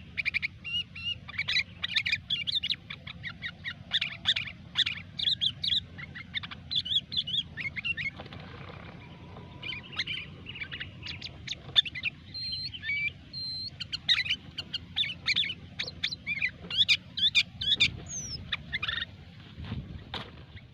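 Sooty-headed bulbuls (kutilang) chattering in fast, busy runs of short chirps and whistles (the 'gecor' calling), with a short lull near the middle.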